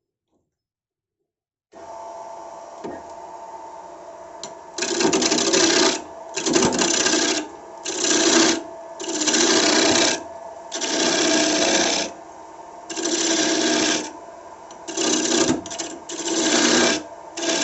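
Wood lathe running with a steady motor hum, while a turning tool is pressed into the spinning wood again and again, giving nine loud rasping cuts of about a second each. The hum starts about two seconds in, after a brief silence.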